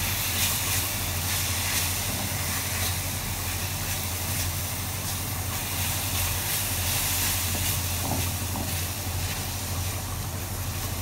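Steady hiss and sizzle of desiccated coconut cooking in a nonstick pan over a low gas flame as condensed milk is poured in and stirred with a silicone spatula, with a constant low hum underneath.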